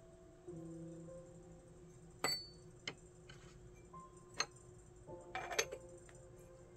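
Teaware clinking: one sharp, ringing clink about two seconds in, a couple of lighter taps, then a quick run of small clinks near the end, as cups and vessels are set down and handled.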